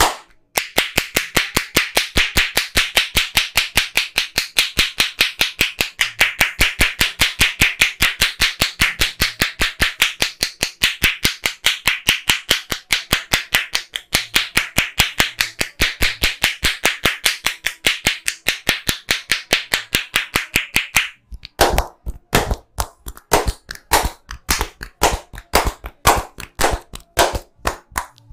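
Percussive hand massage: loosely cupped palms slapping the client in a rapid, even rhythm of about four to five slaps a second. After a brief stop about three quarters of the way through, the slaps come slower and uneven.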